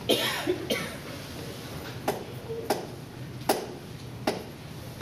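Hushed meeting room during a moment of silence: a brief small vocal sound right at the start, then about five sharp, isolated clicks or knocks at irregular intervals of roughly a second.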